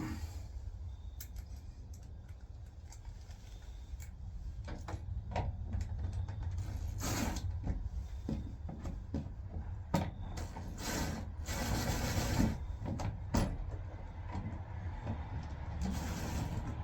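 Shed assembly work: scattered clicks and knocks of parts and hardware being handled, with three longer rustling or scraping bursts, over a steady low rumble.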